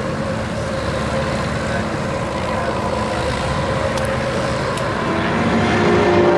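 Propeller aircraft engines flying in formation, a steady engine drone that grows louder over about the last second as the aircraft come closer.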